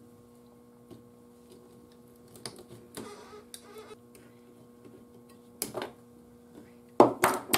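Pliers and fingers working a capacitor's wire leads into a metal radio chassis: scattered small clicks, taps and rustles over a steady low hum, with a louder sharp clatter about seven seconds in.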